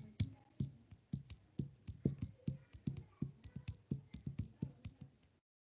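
Typing on a computer keyboard: quick, irregular key clicks, about four or five a second, cutting off suddenly shortly before the end.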